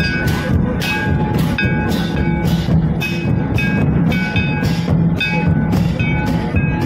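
Traditional Santhali dance music: drums beating a steady rhythm of about two strokes a second, with ringing high notes held over the beat.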